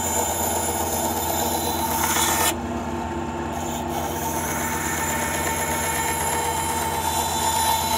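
Ryobi bandsaw with a quarter-inch, 18-teeth-per-inch blade cutting a curve through a small wooden blank, a steady motor hum under the rasp of the blade in the wood. The cutting noise drops away after about two and a half seconds and comes back about a second and a half later, while the hum runs on.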